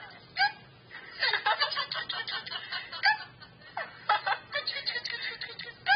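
A person giggling and snickering in short repeated bursts, starting about a second in and continuing on and off.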